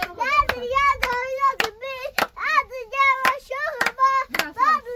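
Hands clapping a steady beat, about two claps a second, while a high voice sings a lilting tune over it.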